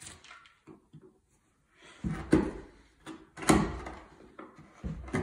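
Wood chisel pushed by hand, paring and scraping the bottom of a shallow mortise in wood, cut for a key lock fastener plate. A few short, irregular cuts come with quiet gaps between them, the strongest about three and a half seconds in.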